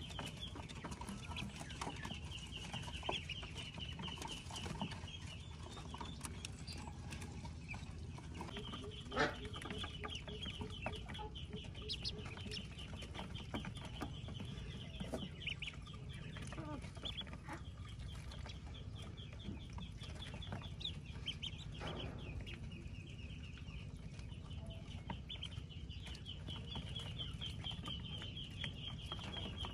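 A brood of Pekin ducklings peeping in a fast, high, unbroken chatter as they feed. A single sharp knock about nine seconds in.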